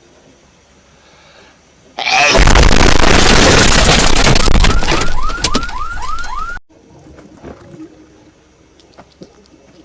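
Hedgehog sneeze blown up into a very loud, distorted blast, meme-style, that bursts in suddenly about two seconds in and lasts about four and a half seconds. It ends in a quick run of repeated rising squeaks and then cuts off abruptly.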